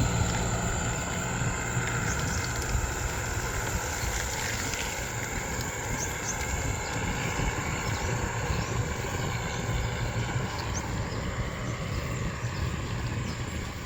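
Wind rumbling on the microphone with road noise while riding a touring bicycle, a steady low rumble throughout, with a thin high steady tone over it.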